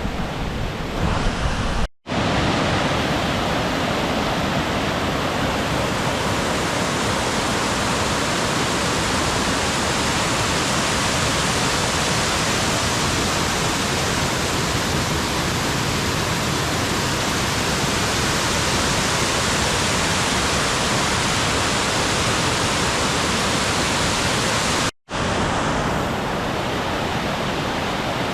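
Loud, steady rush of fast-flowing mountain water. The sound breaks off for an instant twice, about two seconds in and near the end, where the recording is cut.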